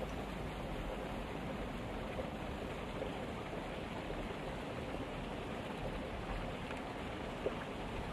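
Flowing water making a steady, even rush.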